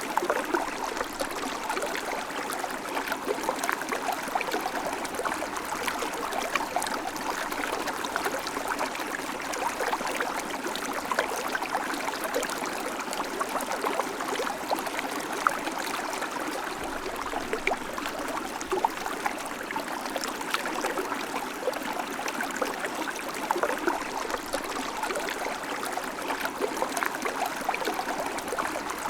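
River water flowing and babbling steadily, with small splashes and trickles over stones.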